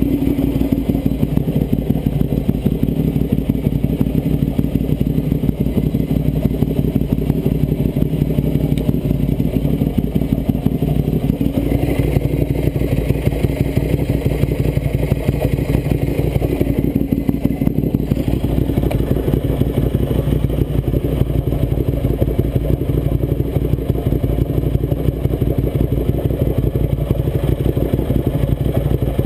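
A 2009 Ducati 848's V-twin engine idling steadily, with a metallic chattering from the engine that the owner finds strange.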